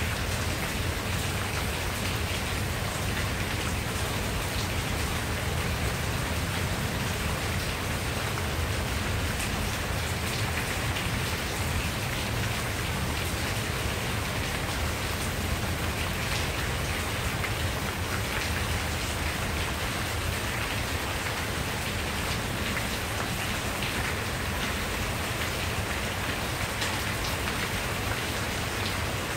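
Steady rain falling on tree leaves, an even, unbroken hiss with scattered single drops ticking through it.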